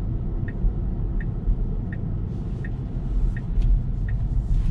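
Tesla's turn-signal indicator ticking evenly, about three ticks every two seconds, for a right turn, over steady road and tyre rumble in the cabin of the electric car. A hiss of tyre and road noise swells about two seconds in as the car goes through the turn.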